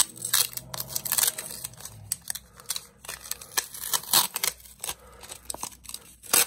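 Thin plastic deli cup being handled and its snap-on lid worked open: a run of sharp plastic clicks and crinkles, with the loudest click near the end.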